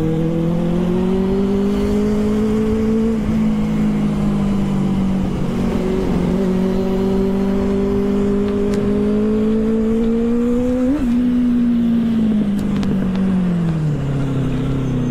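Benelli TNT 600i inline-four motorcycle engine under way. Its pitch rises, drops at a gear change about three seconds in, climbs again to a brief blip near eleven seconds, then falls as the bike slows near the end.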